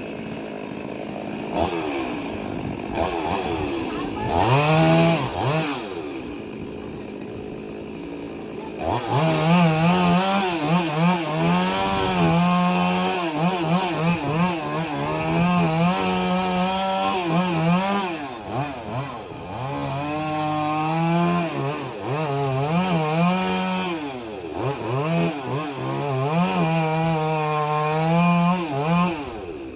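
STIHL MS 382 two-stroke chainsaw revving up a few times, then running hard from about nine seconds in, its pitch wavering and dipping again and again as the chain is loaded in the wood.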